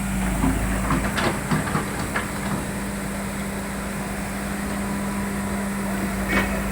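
Excavator's diesel engine running steadily, with a few short metallic clanks and knocks about a second in and again near the end.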